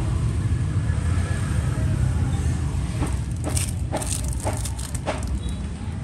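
Several sharp metal clicks in quick succession, from about three seconds in to five seconds in, as Zippo lighters are handled, over a steady low rumble.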